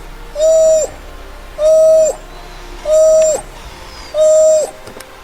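A bird calling a repeated hooting note about once every second and a quarter. Each note is held level and then drops in pitch at its end, with a fainter high, buzzy sound alongside each one.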